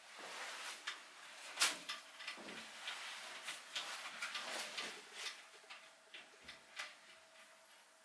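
Scattered clicks, taps and knocks as a toilet seat and its hinge nuts are fitted and adjusted on a toilet bowl, with light rustling of handling; the sharpest knock comes a little over a second and a half in.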